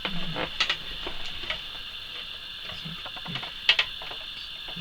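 Light clicks and knocks of plastic 3D-printer parts being handled and tilted, with a sharper pair of knocks near the end.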